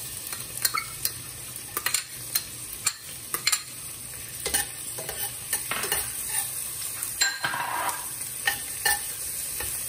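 Chopped red onions sizzling in hot sesame oil in a stainless steel pot while a spatula stirs them. The spatula makes frequent, irregular light clicks and scrapes against the pot.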